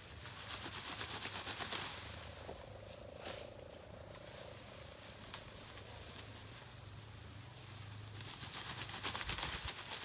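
Leaves and stalks rustling as a person works bent over in dense vegetation, cutting and pulling plants, louder about a second in and again near the end, with a couple of sharp snaps in the middle.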